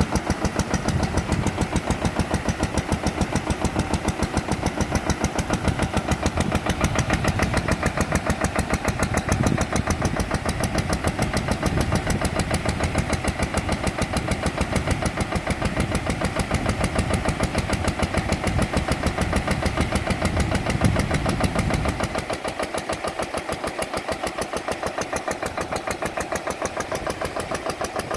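Engine of a long-arm aquaculture aerator running steadily, its firing pulses coming in a fast, even chug. About two-thirds of the way through, the deep low end drops away and the sound gets a little quieter.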